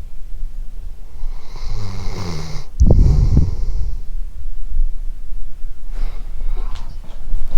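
Dog snoring close to the microphone: a drawn-out pitched snore lasting about a second, cut off by a sudden loud breath about three seconds in. Softer breathing and a few small clicks follow.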